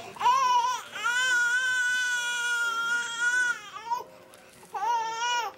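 Infant crying: a short cry, then one long held wail of about three seconds, and another short cry near the end.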